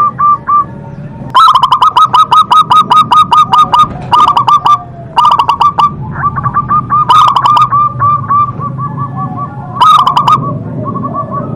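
Zebra dove (perkutut) cooing in bursts of rapid staccato notes, about eight a second, with short pauses between the bursts.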